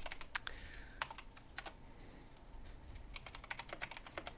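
Typing on a computer keyboard: scattered key clicks, a pause of about a second in the middle, then a fast run of keystrokes near the end.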